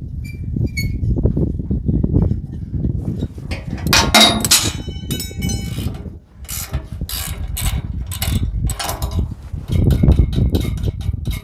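Wrench loosening the light-bracket bolts on a semi truck's aluminium bumper: a run of metal clicks and knocks, with a ringing metallic clang about four seconds in.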